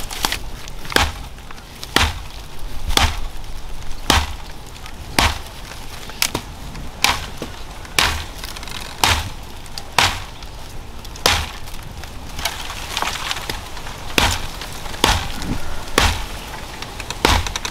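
Repeated chopping strikes of a blade into wood, about one a second in a steady rhythm, with splintering crackle between the blows.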